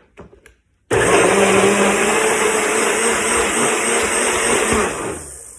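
Electric blender running, grinding half a red onion in lemon juice. It starts abruptly about a second in, runs steadily with a motor hum and a high whine, and winds down near the end as it is switched off.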